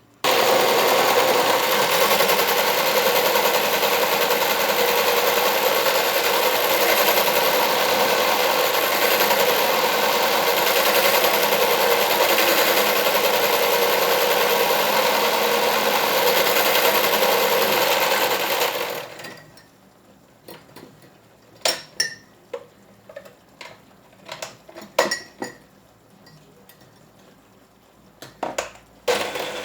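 Electric kitchen mixer running steadily, whipping banana and honey into a thick foam, then switching off about 18 seconds in. After that come scattered sharp clicks and knocks.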